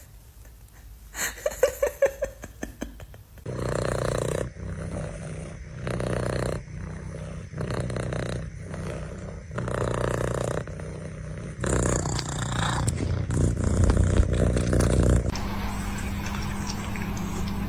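A domestic cat purring loudly, close to the microphone, in slow swells that come back about every two seconds with its breathing.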